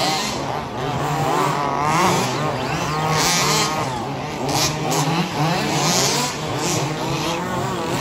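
Several radio-controlled 2WD off-road buggies racing on a dirt track, their motors whining up and down in pitch as they accelerate and brake, with short bursts of tyres scrabbling on loose dirt.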